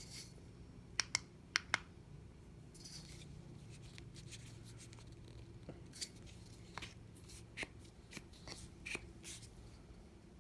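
Flashlight push-button switches clicking, with light handling noise: four sharp clicks in two quick pairs about a second in, then scattered softer clicks in the second half.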